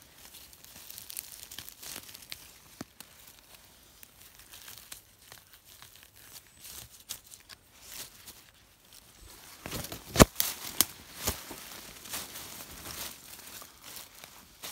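Dry leaf litter, moss and twigs on a forest floor rustling and crackling as someone moves over it and brushes the ground by hand. There is a cluster of sharper cracks about ten seconds in.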